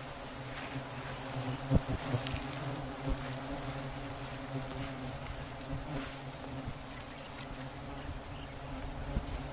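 A colony of giant honeybees (Apis dorsata) buzzing, a steady low hum of many wings, with a few sharp knocks about two seconds in.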